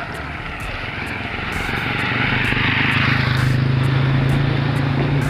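Small motorcycle-type engine drone, steady in pitch, swelling in over the first couple of seconds and then holding. A rush of noise comes around two to three seconds in as an oncoming motorcycle sidecar tricycle passes close by.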